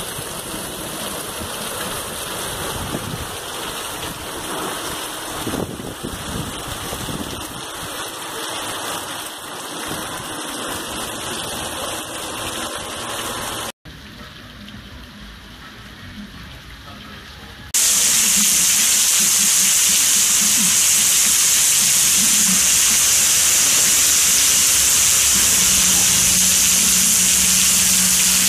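Hurricane wind and heavy rain: a steady rushing noise that drops abruptly to a quieter stretch about halfway through, then jumps to a much louder, hissier rush a few seconds later.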